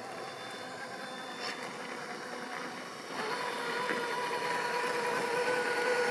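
Axial SCX6 RC crawler's stock electric motor and gear drivetrain whining as it crawls; the whine comes on louder with a brief rise about three seconds in and then holds steady.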